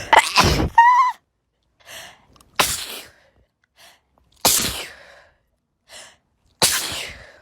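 A person sneezing four times, about two seconds apart, each sneeze a sudden loud burst after a short gasping intake of breath.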